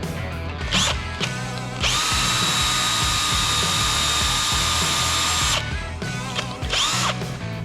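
Hand-held electric drill with a 5/32 bit running at steady speed for nearly four seconds, drilling a pilot hole in a tractor wheel hub for a grease zerk. There are short spin-ups about a second in and near the end. Background guitar music plays underneath.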